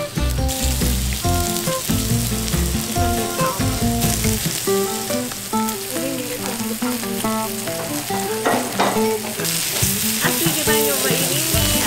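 Pork belly and abalone sizzling on a hot griddle plate, a steady frying hiss that grows louder in the last couple of seconds, with background music over it.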